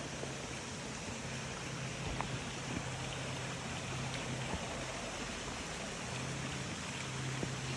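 Steady rush of water from a stream or small waterfall, with a low hum underneath.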